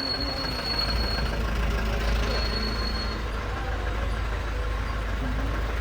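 Steady vehicle engine and road noise: a constant low rumble with a thin high whine heard twice.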